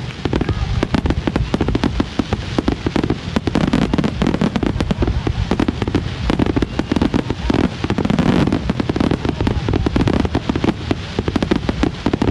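Aerial fireworks going off in a dense, unbroken barrage of rapid bangs and crackles.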